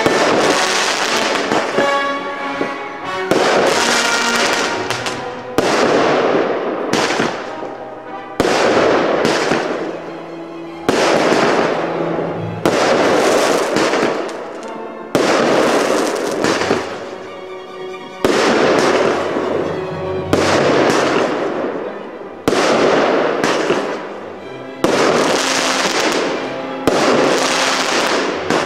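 Aerial fireworks going off in a series of sudden bursts every one to three seconds, each fading away, over background music.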